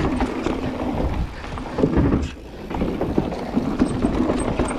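Mountain bike descending a dirt singletrack: steady tyre rolling noise with the bike rattling and knocking over bumps, and wind buffeting the microphone. Near the end the tyres roll onto a wooden plank boardwalk.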